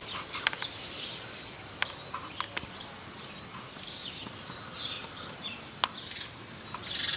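Lovebirds giving short, sharp, high chirps and calls at irregular moments, over a faint outdoor hiss. The calls become a busier flurry near the end.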